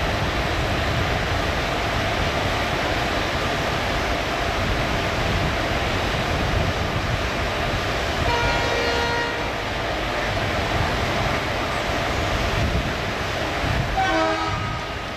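WDM-3A diesel locomotive's ALCO turbocharged V16 engine running under load as it pulls a passenger train away from a standstill, with steady rumble and rail noise. A train horn sounds in two short blasts, about eight seconds in and again near the end.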